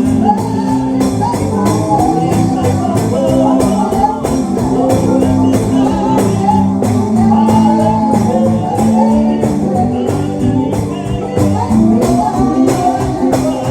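Live gospel music: a band playing with a tambourine keeping a steady beat under a wavering melody line.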